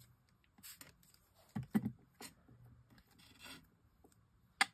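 Small die-cut paper pieces being coloured and handled by hand: scattered soft rubs and scrapes, with one sharp click near the end.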